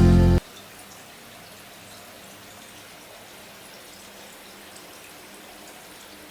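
Background music cuts off abruptly right at the start, leaving the quiet, steady sound of running water with small scattered drips.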